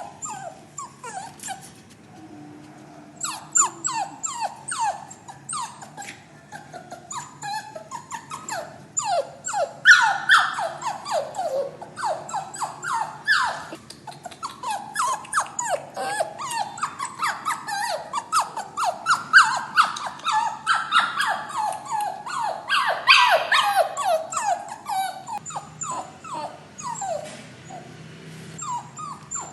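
A puppy crying and whimpering: a rapid, unbroken run of short high-pitched cries, each falling in pitch, several a second, louder about a third of the way in and again near three quarters. It is a puppy's distress crying at being shut in a cage.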